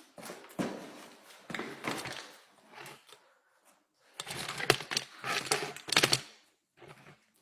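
Irregular rustling and clicking, with a few knocks, in two bursts of a couple of seconds each.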